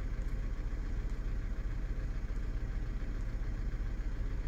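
Steady low rumble with no speech, even in level throughout.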